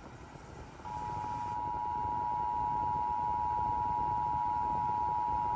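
Emergency Alert System two-tone attention signal, two steady pure tones sounding together, starting about a second in and holding level. It marks the start of an emergency alert, here a severe thunderstorm warning.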